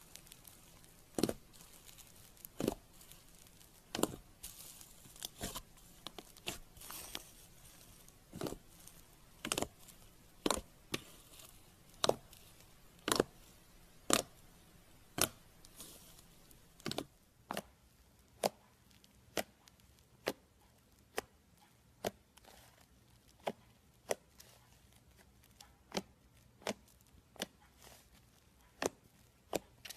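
Hands pressing and poking fluffy slime, giving sharp pops about once a second, with softer crackling between them.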